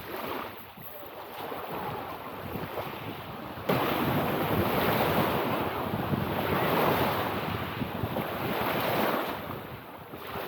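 Lake waves washing on the shore, with wind blowing on the microphone; the wind noise jumps suddenly louder nearly four seconds in and eases off near the end.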